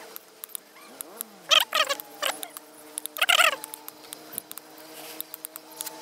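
Knife chopping partridge meat on a wooden stump block: sharp knocks at irregular intervals. Two short, loud animal calls cut in, about a second and a half and three seconds in.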